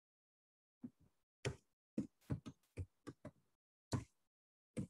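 Computer keyboard keystrokes as a number is typed: about a dozen short, separate taps at an uneven pace, fairly faint.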